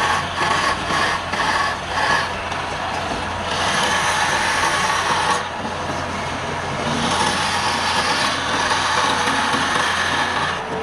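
Wood lathe running with a steady motor hum while a turning tool works the spinning palm-wood blank: quick repeated scrapes in the first two seconds or so, then a continuous cutting hiss.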